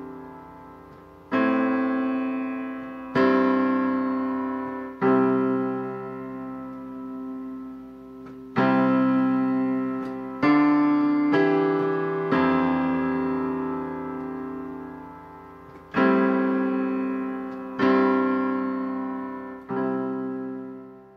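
Solo piano playing slow chords, one struck about every two seconds and left to ring and fade, with two longer gaps between them; the last chord dies away at the end.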